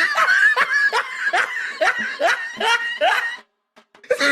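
Snickering laughter in a quick, even run of short hee-hee bursts, about four a second. It cuts off suddenly about three and a half seconds in and starts again just before the end.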